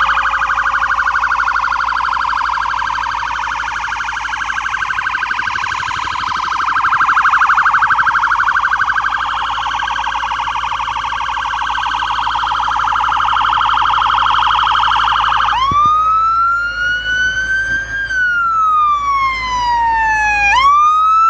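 Fire engine electronic siren sounding a fast, pulsing warble, then switching to a slow wail about 15 seconds in. The wail rises, falls, and begins to rise again before cutting off.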